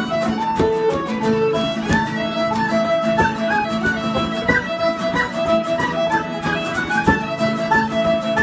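Irish traditional band playing a reel at a driving pace: fiddle and tin whistle on the melody over a steady bodhrán beat and strummed guitar.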